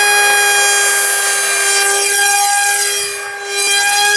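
RC model plane's motor running at full throttle: a loud, steady, high whine with many overtones as the plane takes off down the road and flies away. There is a brief dip in loudness about three seconds in.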